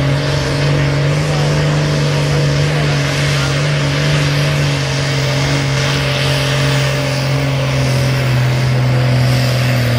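Vintage diesel tractor engine running hard at full throttle, hauling a weight-transfer pulling sled under heavy load. It is a steady engine note whose pitch slowly sinks through the pull as the engine is lugged down.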